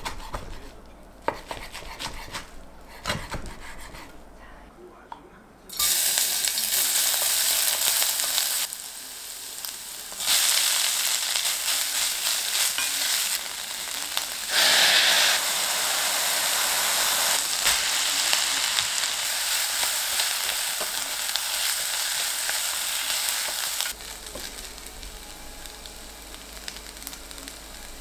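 A few light utensil clicks and knocks, then food sizzling loudly and steadily in a hot frying pan from about six seconds in, falling abruptly to a quieter sizzle near the end.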